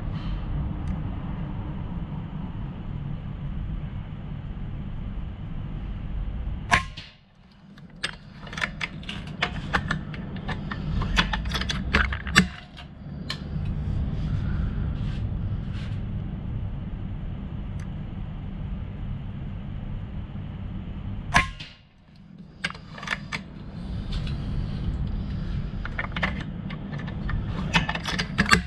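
Airgun Technology Vulcan 3 PCP air rifle firing twice, about fifteen seconds apart: each shot is a sharp crack followed by a run of small clicks and knocks. A steady low rumble runs underneath.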